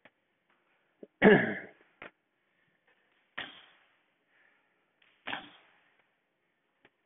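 Sounds of a person working out: four sharp, short sounds about two seconds apart, each fading quickly, the first the loudest.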